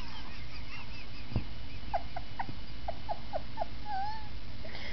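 A baby's turkey-like calls: a run of about seven short, quick falling chirps, then a short wavering squeal, over a steady low hum.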